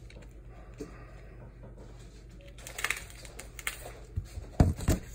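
Pomelo segments and membrane being pulled apart by hand, with a short run of soft crackles about three seconds in, then several low thumps near the end.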